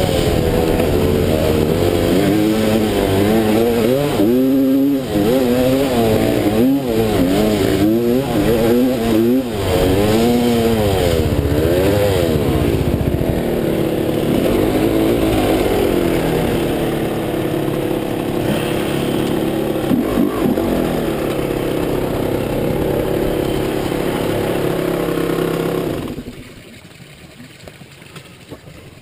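Dirt bike engine heard from on board, its pitch rising and falling over and over as the throttle is worked, then running steadier; about a second before the end, just after the 26-second mark, the engine noise drops away sharply.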